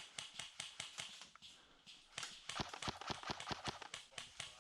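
Quick running footsteps with kit rattling, about five or six knocks a second. They slacken briefly about one and a half seconds in, then come back heavier.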